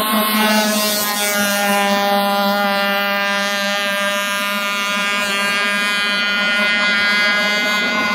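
Radio-controlled Scarab model speedboat's motor running at speed, a steady buzz with many overtones whose pitch wavers slightly as the boat runs.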